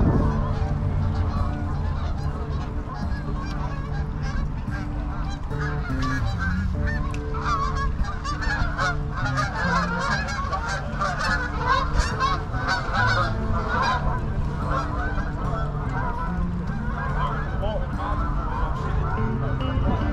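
A large flock of geese flying over, honking continuously with many birds calling at once; the honking is densest from about six to sixteen seconds in.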